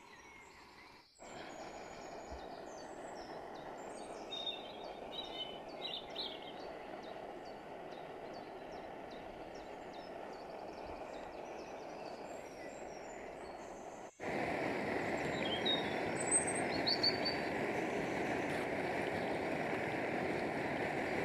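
Chicken pakoras deep-frying in a pot of hot oil, a steady sizzle and bubbling that becomes louder about fourteen seconds in. Birds chirp faintly in the background.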